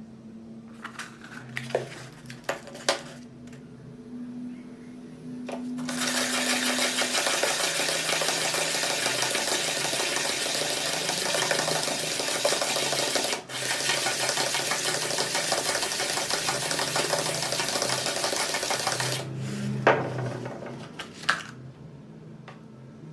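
Meat grinder blade being sharpened against an abrasive: a few clicks over a low steady hum, then a loud, even grinding noise for about thirteen seconds, broken once for an instant partway through, then the hum and a few clicks again.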